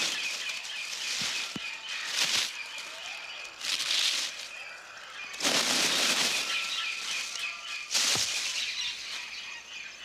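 Leaves rustling and thrashing in several loud bursts, each about a second long, over a steady high-pitched drone of rainforest insects. A few short thuds come in the first two seconds.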